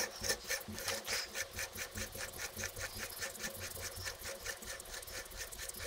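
Large threaded nut on a hydraulic cylinder barrel being spun on by hand over anti-seize-coated threads, giving a faint, even ticking of about six ticks a second.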